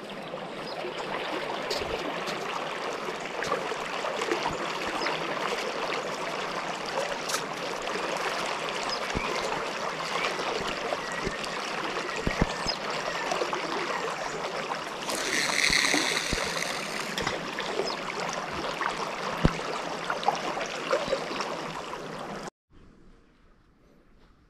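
River water running and lapping along a muddy riverbank in a steady rush, with a few faint clicks and a short buzzing animal call lasting about two seconds a little past the middle. The rush cuts off suddenly near the end.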